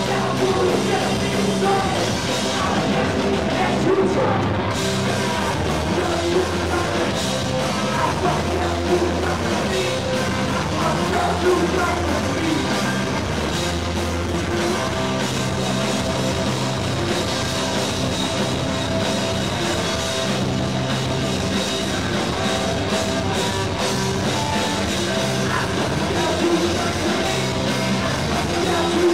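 Punk rock band playing live: electric guitars, bass and drum kit at a steady loud level, with a singer's vocals.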